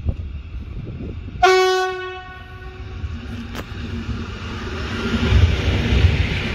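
EN57AL "Aldona" electric multiple unit departing: one short horn blast about a second and a half in, then the rumble of its motors and wheels growing louder as it pulls past close by.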